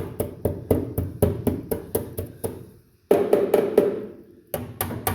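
Hammer knocking repeatedly on the rusted steel crossmember of an M151 jeep, about three blows a second. It breaks off briefly about three seconds in, then comes back in quicker runs.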